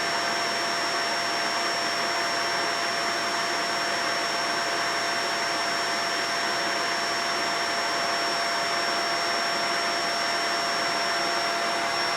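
Vacuum cleaner running steadily: an even rush of air with a constant whine on top.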